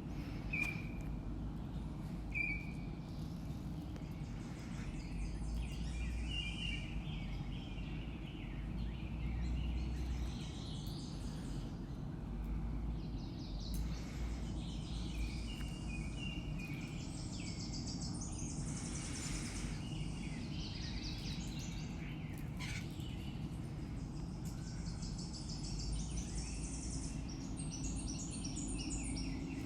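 Small birds chirping and calling in scattered short notes, over a steady low background rumble.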